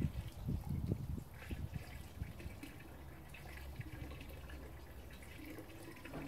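Water splashing and trickling from a homemade water ram pump into a drum, with a few irregular low knocks in the first couple of seconds.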